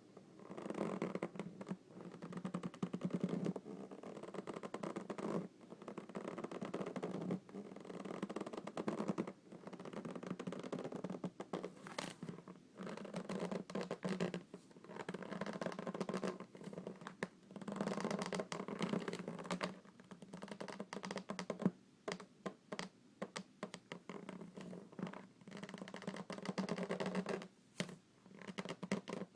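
Hands rubbing and fingernails scratching on an inflated rubber balloon, in repeated strokes of a second or two with short pauses between. From about two-thirds of the way in, the strokes turn into quicker, shorter scratches.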